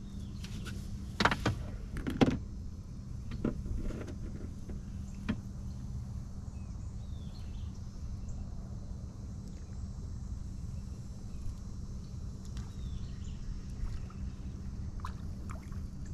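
A steady low hum on a small boat on the water, with several sharp knocks in the first few seconds, the loudest about a second and two seconds in.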